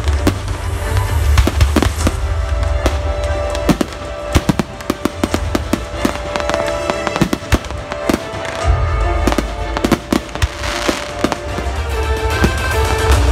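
Aerial fireworks bursting: many sharp bangs and crackles in quick, irregular succession, with music playing at the same time.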